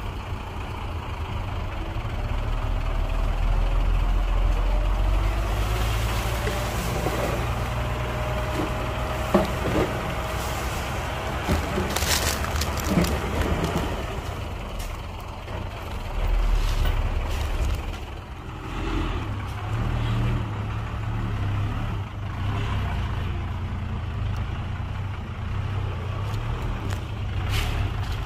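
Heavy diesel engine of construction machinery running steadily, rising twice, with a faint whine for a few seconds and a few sharp knocks or hisses along the way.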